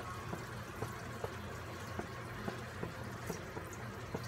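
Adobo simmering in a wok with small scattered pops and crackles as vinegar is poured in from a plastic bottle, the sauce nearly cooked down. A low steady hum runs underneath.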